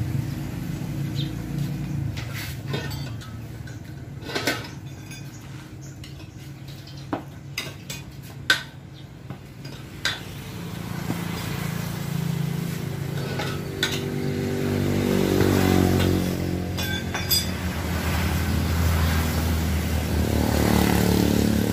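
Sharp metallic clinks and knocks of tools on metal, scattered and irregular, over a steadily running engine that grows louder and shifts in pitch about halfway through.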